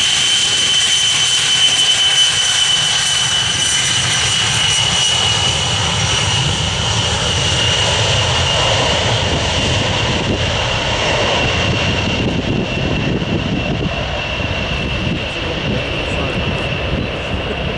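B-52 bomber's eight turbofan engines at takeoff power during the takeoff roll: loud, steady jet engine noise with a high whine that slowly drops in pitch, the noise easing a little in the last few seconds as the bomber moves away.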